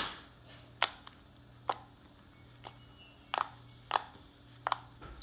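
Slime being squeezed and poked by hand, giving a series of short sharp pops, roughly one a second.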